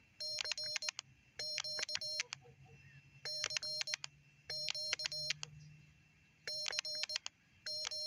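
Morse code sidetone from a small QRP transceiver's built-in speaker, keyed with iambic paddles at about 20 words per minute in practice mode. It is a steady, tinny beep near 600 Hz sending "CQ" three times: six letter groups of dots and dashes, in three pairs.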